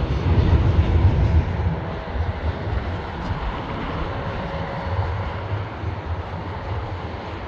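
Freight train of coal hopper wagons rolling over a railway bridge: a steady low rumble, louder in the first second and a half and then easing slightly.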